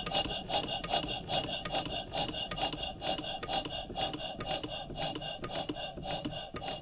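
Alyn Foundry RLE model stationary engine running steadily, with an even rasping clatter of about five beats a second from its valve gear and ignition points; the points are a bit noisy.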